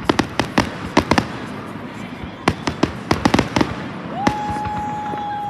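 Fireworks going off: a rapid, uneven series of sharp bangs and crackling reports. About four seconds in, a steady high whistle starts and holds.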